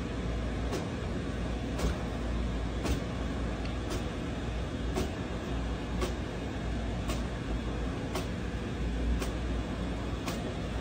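HP printer running as it prints, a steady mechanical hum with a regular click about once a second.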